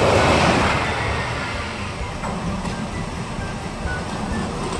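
Cartoon truck engine-and-driving sound effect: a low rumble that swells at the start and slowly fades away.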